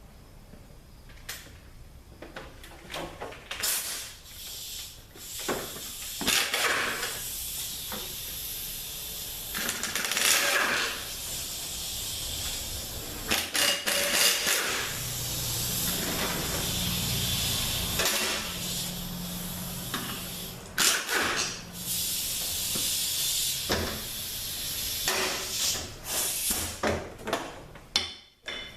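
Air tool hissing in repeated bursts of a second or more as it runs out the bolts holding the tail housing of a THM-350 transmission.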